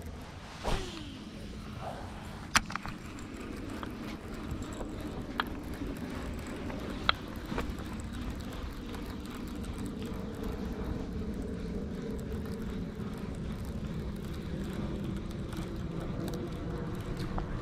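A Daiwa Tatula TW100 baitcasting reel in use on a cast and retrieve: a short whizz with a falling pitch about a second in, then a few sharp clicks spaced a couple of seconds apart, over a steady low drone.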